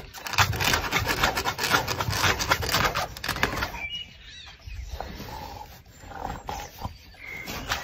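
A dog scratching and digging with its paws at the fabric of a raised cot bed, rapid scraping strokes for about three and a half seconds before it goes quieter.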